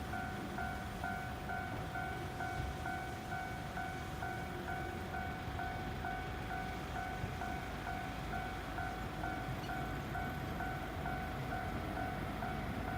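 Japanese railway level-crossing alarm ringing, a rapid repeating electronic ding over a steady tone, with the low rumble of a train underneath.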